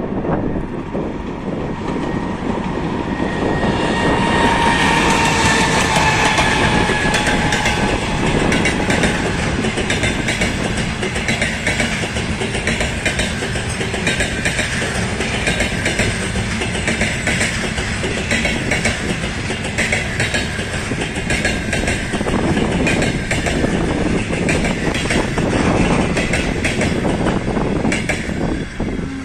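An EP20 electric locomotive passes with a whine from its electrical equipment that slowly falls in pitch. The double-deck passenger coaches behind it then roll by, their wheels clicking rapidly over the rail joints until the train has gone past.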